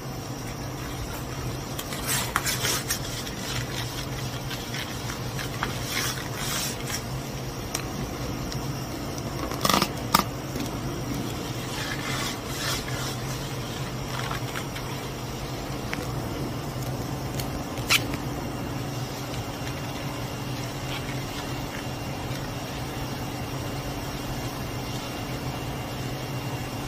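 Steady low room hum, with scattered rustles and a few sharp clicks and knocks from movement close to the microphone, the loudest pair about ten seconds in.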